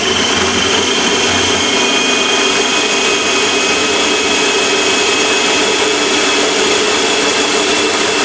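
Hamilton Beach food processor motor running steadily with a whine, blending a soft cream cheese and ricotta mixture.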